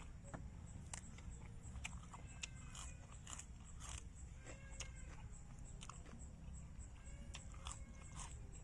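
A person chewing and biting food close to the microphone, with irregular faint mouth clicks and crunches. A faint insect chirps steadily in the background.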